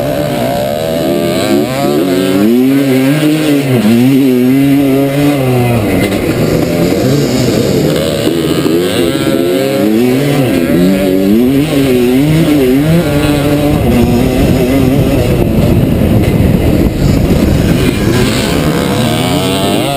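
The 1982 Frigerio-Puch 250 motocross bike's two-stroke single-cylinder engine, heard close up from on board, revving hard and dropping back over and over as the bike is ridden around a rough track, over a steady rushing noise.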